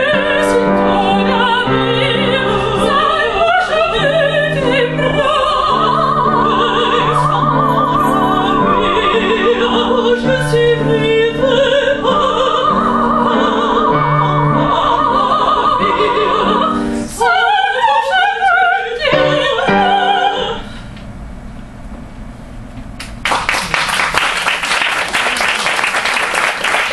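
Two women's voices singing an operatic duet with piano accompaniment: long held notes with vibrato, a run of quick ornamented notes near the end, then the final note. After a brief quieter pause the audience breaks into applause for the last few seconds.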